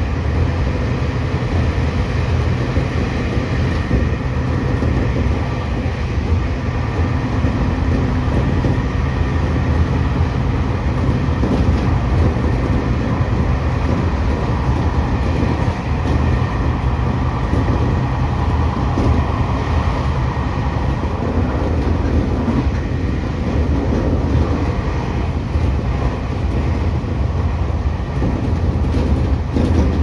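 Seibu 2000 series electric train running at speed, heard from inside its driver's cab: a steady rumble of wheels on rail and running gear.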